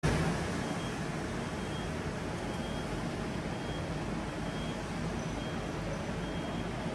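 Steady outdoor city background noise, a constant even hiss and rumble, with faint short high-pitched beeps recurring about once a second.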